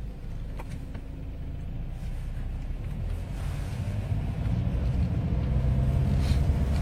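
Low, steady rumble of a vehicle running, as heard from inside a moving car, slowly growing louder.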